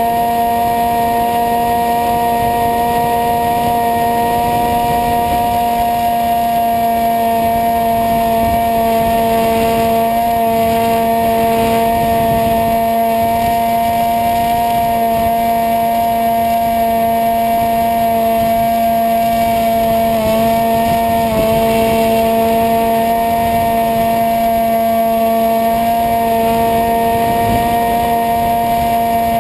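Electric motor and propeller of an EasyStar RC plane in flight, a steady whine at constant throttle with wind rushing over the camera mounted on the plane. The pitch dips briefly about two-thirds of the way through.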